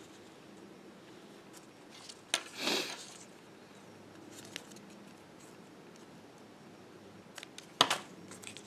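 A craft knife cutting paper: one short rasp a little over two seconds in, then a few light clicks near the end.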